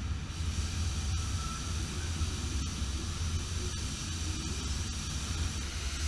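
Steady low rumble with an even hiss over it: the air and machinery noise of an automated car-body paint booth while robots spray a white body shell.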